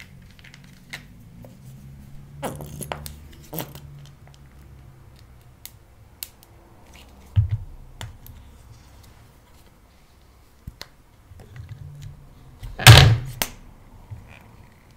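A soft plastic makeup tube being handled and squeezed: small plastic clicks and crackles, a soft thump midway, and a louder crackling squeeze near the end as the tube is pressed.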